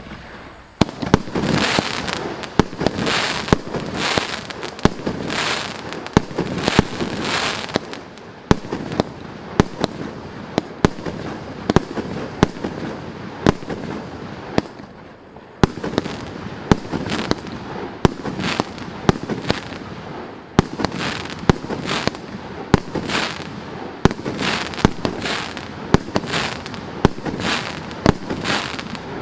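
A 36-shot, 1.2-inch consumer fireworks cake firing its shots one after another, about one or two sharp bangs a second, with crackling between them.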